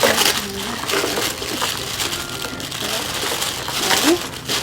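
Packaging crinkling and rustling as a taped mail package is handled and opened, a steady crackle of many small crackles.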